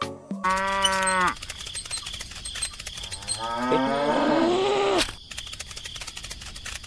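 Cow mooing twice, dubbed over a plastic toy cow: a short, steady moo about half a second in, then a longer moo whose pitch rises and falls, ending abruptly at about five seconds. A fast, even clicking runs underneath.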